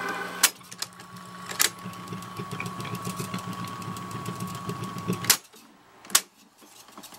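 Panasonic RQ-705 reel-to-reel tape recorder switched with a click into fast winding. The motor and reels run with a steady whirr and a thin high whine for about five seconds, then stop with a click, and one more click follows.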